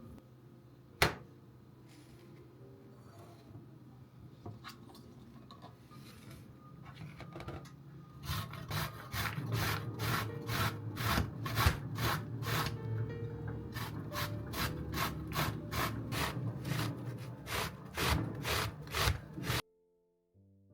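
Vegetables being grated by hand on a grater: quick, even rasping strokes, about two a second, starting about eight seconds in and stopping abruptly near the end. A single sharp knock sounds about a second in.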